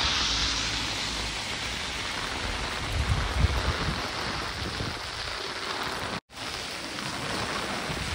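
Very heavy rain falling and splashing on the ground, a steady hiss with uneven low rumbling underneath. The sound drops out for an instant about six seconds in.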